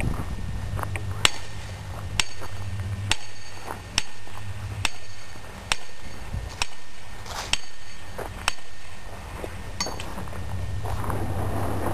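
Hammer blows ringing on steel, about one a second, some ten strikes from about a second in until about ten seconds in: a hammer driving a steel splitting wedge to split firewood.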